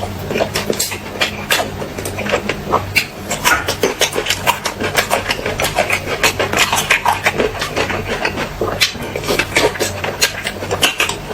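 Close-miked mouth eating sounds: a person chewing and smacking, a dense run of quick wet clicks and crackles, over a low steady hum.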